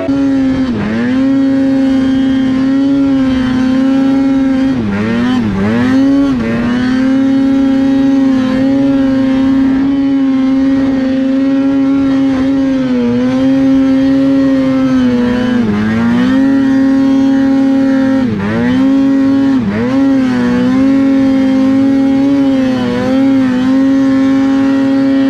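Polaris RMK Khaos 155 snowmobile's two-stroke engine running at high revs, heard on board the moving sled. The pitch dips briefly several times as the throttle eases and opens again, and it drops away right at the end.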